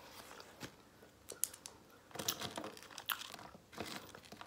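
Quiet close-miked eating sounds: chewing with scattered wet mouth clicks and smacks, and fries being picked up by hand.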